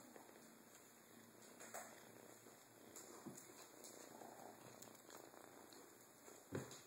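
Faint kitten purring, with a few light taps and one sharper knock about six and a half seconds in from kittens batting at a string toy on a tile floor.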